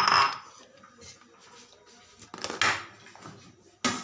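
A utensil scraping and clinking against a baking dish three times as sauce is spread over its bottom.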